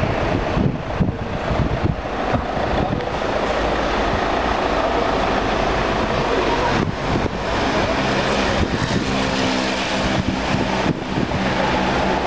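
Street traffic noise: a steady hum of vehicles, with an engine's hum becoming clearer and steadier in the second half.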